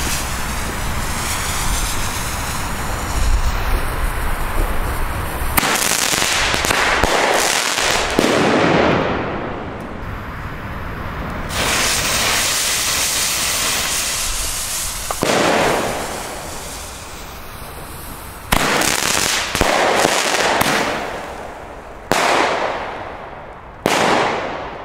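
Nico Supreme Double Shots, double-shot firework tubes, going off in a string of sudden loud shots. Each shot fades out over a second or two, and they come faster toward the end, where three tubes were lit together. Before the first shot there is steady hissing noise from the burning fuse.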